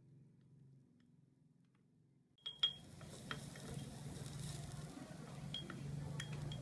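Near silence for about two and a half seconds, then chopped onion starts sizzling in melted butter in a miniature clay pot while a small wooden spoon stirs it, clicking against the pot, loudest in a couple of clicks as the sizzling begins.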